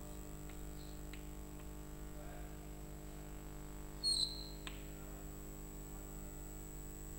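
Chalk on a blackboard: a few faint taps and strokes, then a short high squeak of the chalk about four seconds in, followed by a tap, over a steady low hum.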